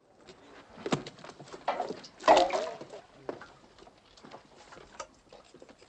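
Scuffling and scattered knocks, with a sharp knock about a second in and a short wordless vocal outburst a little after two seconds.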